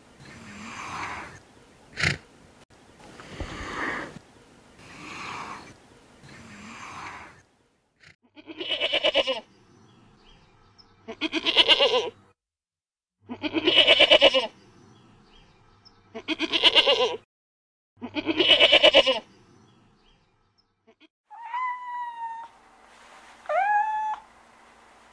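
A giraffe making soft breathy sounds, about one every second and a half. Then a goat bleating loudly five times, each bleat about a second long. Near the end, a long-haired white cat meows twice, short calls that rise and fall in pitch.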